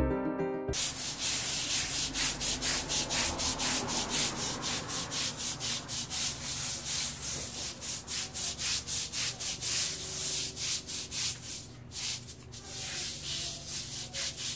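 A hand scrub brush scrubbing wet concrete in quick back-and-forth strokes, about three a second, with a brief pause near the end.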